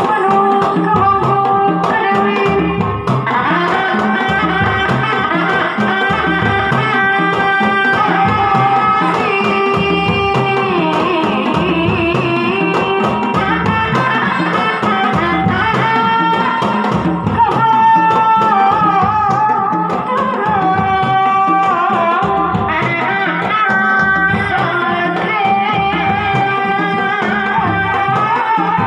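Sundanese reak ensemble playing: dogdog drums beaten in a steady interlocking pattern under a long, wavering melody line.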